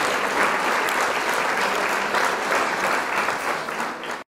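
Applause from a group of people clapping, steady throughout, then cut off abruptly just before the end.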